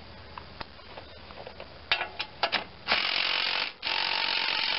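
A few metal clicks as a socket goes onto a bolt, then a Ridgid cordless driver with a socket on an extension runs in two loud bursts with a short pause between them, working the bolt loose.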